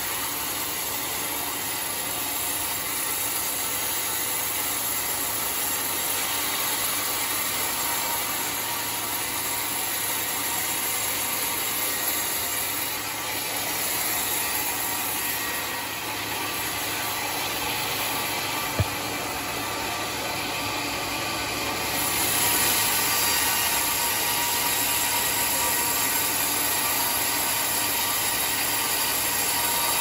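Homemade sawmill running steadily as it saws lengthwise through a large teak log, a continuous cutting noise that grows a little louder about three-quarters of the way through. One sharp click a little past halfway.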